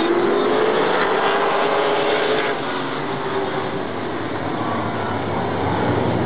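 A pack of stock cars racing on a short oval track, several engines running together at high revs. The sound eases a little in the middle and builds again near the end.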